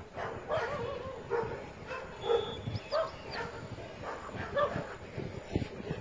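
Saint Bernard dogs making short, repeated yelping barks and whines, one call after another in quick succession.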